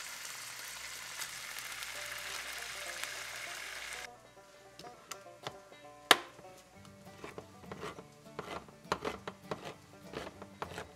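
Goose breast sizzling as it sears in hot oil in a frying pan, cut off abruptly about four seconds in. Then a hand-held manual can opener clicking as it is clamped onto a tin can and cranked around the rim, with one loud sharp click about two seconds after the cut.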